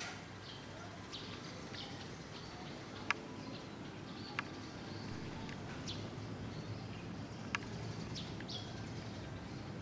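Small birds chirping on and off in the background, short high chirps about once a second. Three sharp clicks stand out, about three, four and a half, and seven and a half seconds in, over a low steady rumble.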